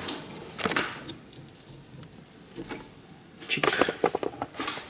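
Short metallic clicks and clinks as the tripod of a drive shaft's inner CV joint is worked off the splined shaft with hand tools. There are a couple of knocks near the start, then a quick run of clinks about three and a half seconds in.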